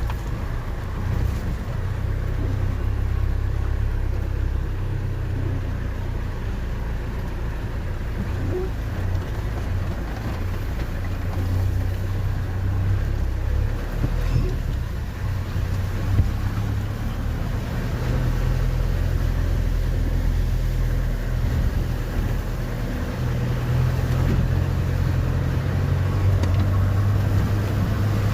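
A motor vehicle's engine running with a steady low rumble while driving, its note shifting now and then.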